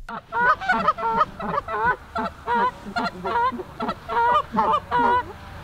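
Canada geese honking and clucking in a rapid run of short, sharp calls, about three or four a second, with some calls overlapping.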